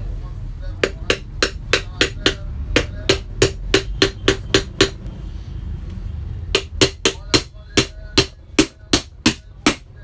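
Small hammer tapping on the metal end cover of a Toshiba ceiling fan's motor housing during reassembly: two runs of quick, ringing metallic taps, about three a second, with a pause of a second or two in the middle.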